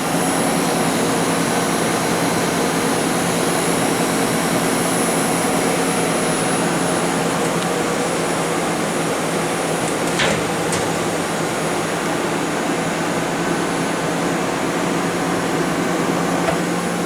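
Mori Seiki ZT-1500Y CNC turning center running powered up at idle, its hydraulic unit giving a steady hum and hiss. A light click about ten seconds in.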